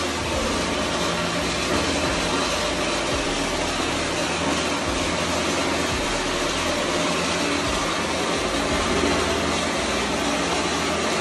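Black Cat cold pyro fountain spraying a column of sparks with a steady, even hiss.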